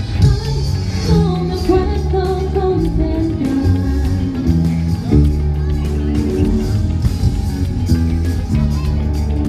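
Live rock band playing over an outdoor PA: a singer over electric guitar and a heavy bass line.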